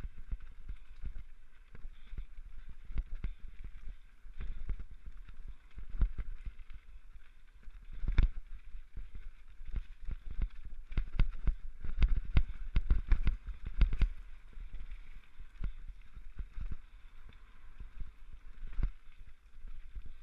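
Mountain bike ridden fast down a rough dirt forest trail, heard through a helmet-mounted camera: the bike rattling and thudding over roots and bumps, with a steady rushing hiss underneath. The knocks come thickest and hardest about ten to fourteen seconds in.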